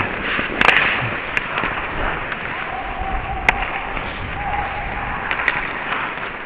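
Ice hockey play heard from a skater's helmet camera: a steady scraping hiss of skate blades on ice and air rushing over the microphone, broken by a few sharp clicks of sticks striking the puck and the ice.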